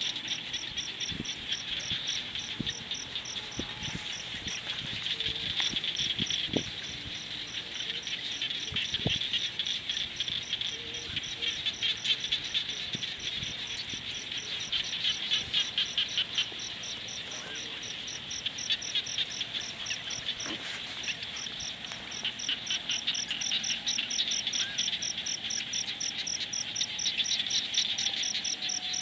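Evening chorus of calling frogs and insects: a dense high trilling with a steady rapid pulse above it, swelling and easing every few seconds. A campfire crackles underneath with scattered faint pops, most of them in the first ten seconds.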